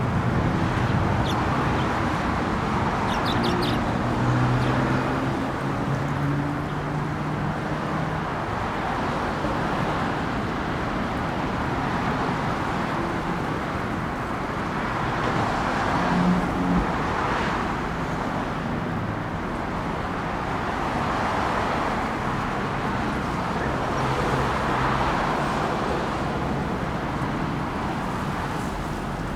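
Road traffic noise: a steady wash of passing cars, with engine hums that drift in pitch as vehicles go by. A few brief high chirps come about three seconds in.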